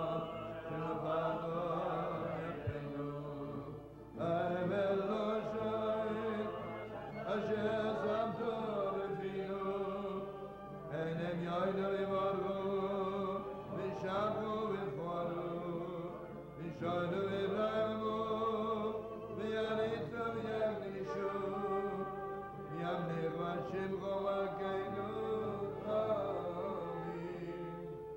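A man singing a slow, chant-like melody in phrases of about three seconds with short breaths between, accompanying himself on acoustic guitar.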